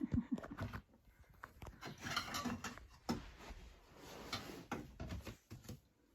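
Scattered light clicks, knocks and rustling of small toys being handled, with a toddler playing with a plastic toy kitchen.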